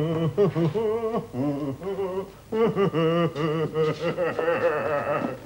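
A man singing a tune with a strong wavering vibrato, in two phrases with a short break about two and a half seconds in.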